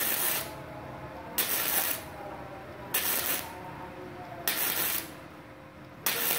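Gasless (flux-core) MIG welder arc crackling and sizzling on 1.5 mm galvanized steel sheet at about 70 A. It comes in short bursts of about half a second, about every second and a half, as the arc is struck and broken again and again to lay short stitch welds.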